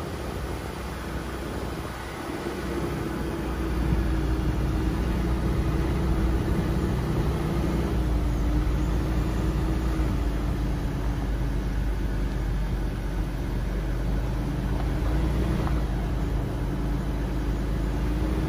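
A car driving on an unpaved forest road: a steady engine hum over low tyre and road rumble, getting louder about four seconds in.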